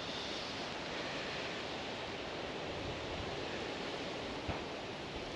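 Steady wind hiss of a breeze across open water, with one faint click about four and a half seconds in.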